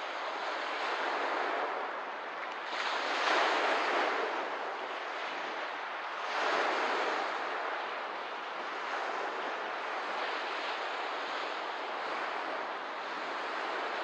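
Small lake waves washing onto the shore in a continuous wash, with two louder waves about three and six and a half seconds in.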